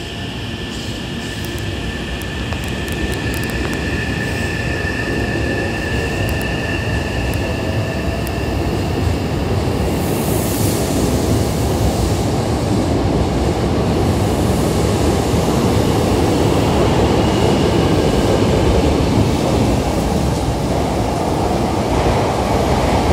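Hankyu 9000 series electric train pulling out of a station: its VVVF inverter motors give a steady high-pitched whine in the first half while the rumble of wheels on rails grows steadily louder. A brief hiss comes about ten seconds in.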